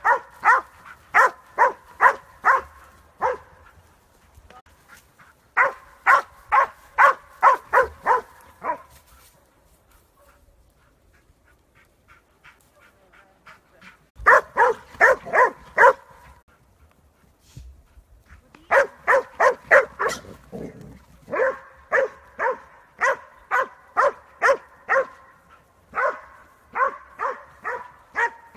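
Catahoula leopard dog bay-barking at wild boar: runs of sharp, evenly spaced barks, two to three a second, broken by short pauses, with the barking fainter between about 9 and 14 seconds.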